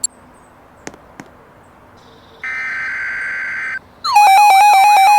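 Emergency Alert System sequence: a few sharp clicks, then about two and a half seconds in a short burst of digital data tones lasting just over a second (an EAS header), then about four seconds in a loud synthesized alert tone begins, stepping up and down in pitch.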